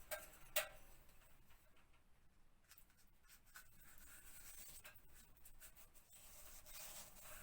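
Faint scratchy brushing as a paintbrush loaded with overlap adhesive is worked against the edge of vinyl wallpaper, with two light knocks near the start and a steadier rubbing from about four seconds in.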